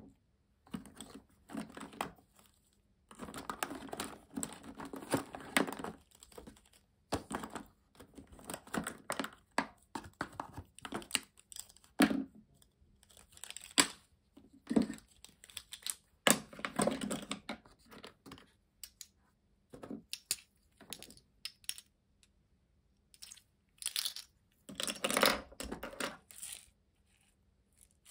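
Hands unpacking plastic tubs and glitter tubes from a cardboard box: irregular rustling, crinkling and sharp plastic clicks in short bursts with brief pauses, loudest a little before the end.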